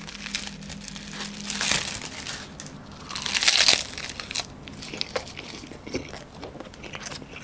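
Plastic film wrapper of a convenience-store triangle kimbap crinkling as it is torn and peeled away, loudest about halfway through. This is followed by crunching bites into the crisp seaweed and chewing.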